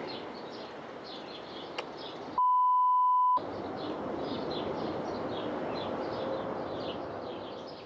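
A single steady electronic censor bleep, one pure tone lasting about a second, about two and a half seconds in; the rest of the sound drops out completely while it plays. Around it runs outdoor background of a steady hiss and many short, high, repeated chirps.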